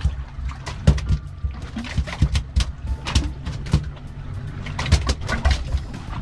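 Choppy water slapping against the fiberglass hull of a small boat at sea: a steady low rumble with irregular sharp splashes and knocks, several a second.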